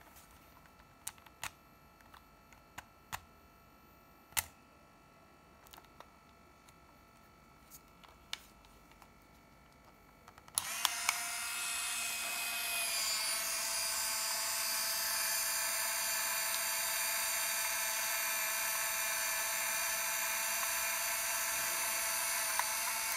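Minolta Riva 100AF compact 35mm camera: a few scattered small clicks of its buttons and body being handled, then about ten seconds in its film-transport motor starts and runs with a steady whine for about twelve seconds, cutting off near the end.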